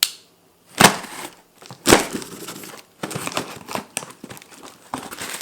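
Packaging being handled and torn open during an unboxing: a few sharp crackles in the first two seconds, then steady rustling and crinkling.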